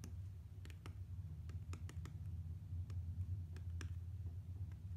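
Apple Pencil's hard plastic tip tapping and clicking on an iPad Pro's glass screen during handwriting: irregular light clicks over a low steady hum.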